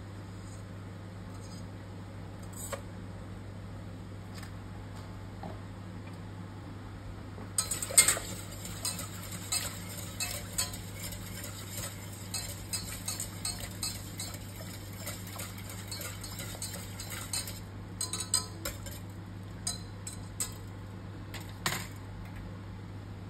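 A wire whisk stirring milk and cream in a stainless steel saucepan, its wires scraping and clicking against the pan for about ten seconds from about eight seconds in, then a few scattered taps. A steady low hum runs underneath.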